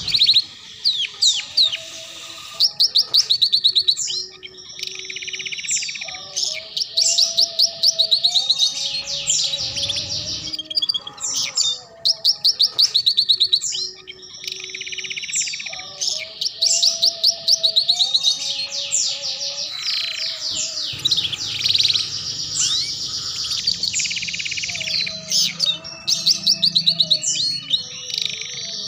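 Domestic canary singing the chattering 'ngeriwik' song, a master song used to teach young canaries: runs of fast repeated notes alternate with rising and falling chirps, with only short breaks.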